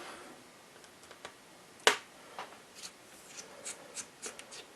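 Small clicks and ticks of a screwdriver working out tiny Phillips screws from a laptop's screen panel. There is one sharp click a little under two seconds in, then a run of faint light ticks.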